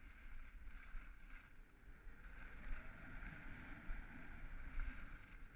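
Skis sliding and scraping over snow on a downhill run, a steady hiss, with wind rumbling on the microphone.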